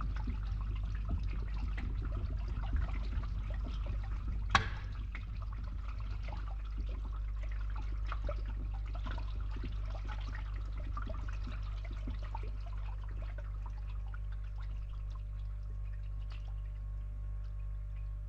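Water pouring and trickling over a steady low hum, with one sharp click about four and a half seconds in; the splashing grows sparser after that.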